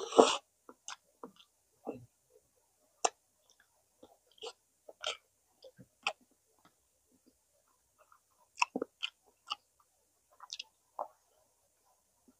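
Close-up mouth sounds of someone eating smoked chicken: chewing with short irregular smacks and clicks, the loudest just at the start.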